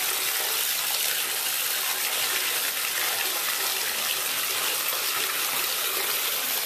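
Bathtub faucet running, a steady stream of water pouring and splashing into the tub.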